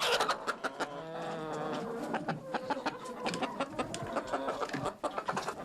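Several birds calling at once: many short, sharp chirps over lower, pitched clucking calls.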